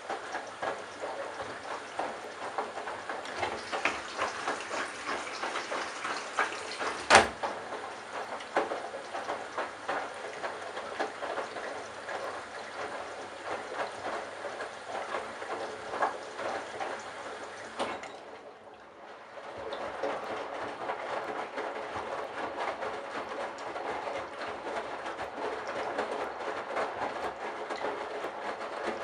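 Candy Bianca front-loading washing machine tumbling a wet load of bathrobes and towels, with a steady irregular clatter and slosh from the turning drum. There is one sharp click about seven seconds in, and a brief pause about two-thirds of the way through before the tumbling starts again.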